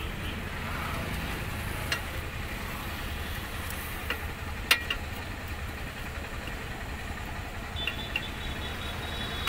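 Spanner on the bolts of a steel dashboard frame, giving a few sharp metallic clicks, the loudest about halfway through, over a steady low background hum.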